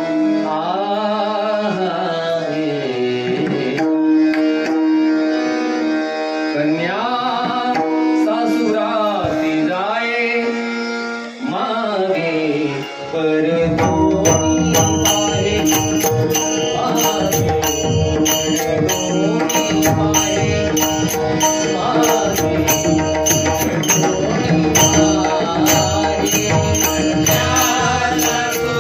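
Male devotional bhajan singing in raga Bhairavi. A solo voice sings a slow, free melodic opening with long held and gliding notes. About halfway through, a hand drum and a high metallic beat come in with a steady rhythm under the singing.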